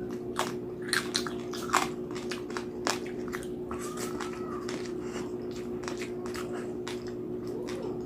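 Close-up crunching and chewing of crispy roast pig skin (lechon), sharp crunches coming thick in the first few seconds and thinning out after, over a steady low hum.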